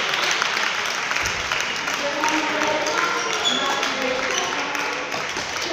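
Busy badminton hall: background voices of players and onlookers echoing in the large hall, with scattered sharp racket-on-shuttlecock hits and footfalls from the surrounding courts.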